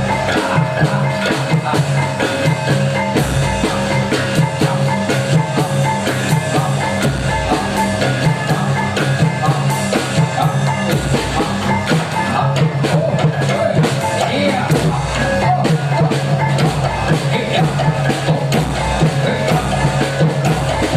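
Loud live music driven by drums and percussion, with many rapid strikes over sustained pitched tones.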